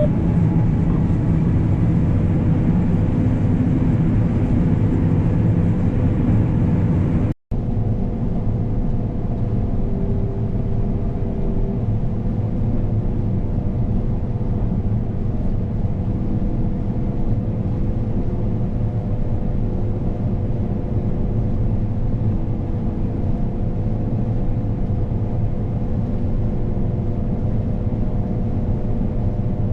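Combine harvester running steadily at work, a constant low engine drone with a faint steady hum above it, broken once by a sharp cut to silence about seven seconds in.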